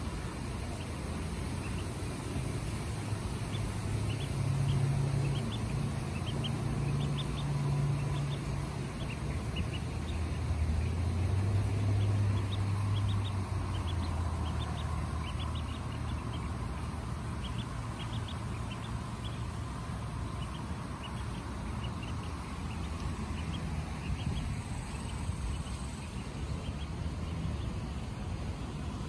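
Ducklings peeping: many short, high peeps scattered throughout, over a steady low rumble.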